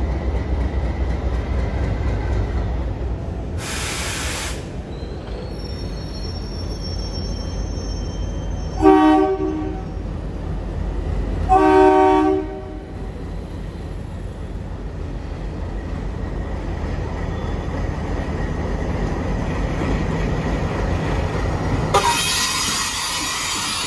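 Indian Railways WDM-class diesel locomotive approaching slowly with a steady low engine rumble. It sounds two short horn blasts about three seconds apart, midway through. There is a brief hiss about four seconds in and another hiss as it draws alongside near the end.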